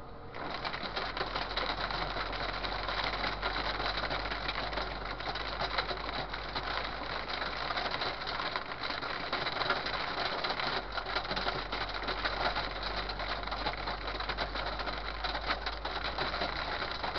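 Hail and heavy rain drumming on a truck's cab and windshield, a dense rapid patter of impacts that starts abruptly as the truck leaves the shelter of an overpass, over a steady low hum.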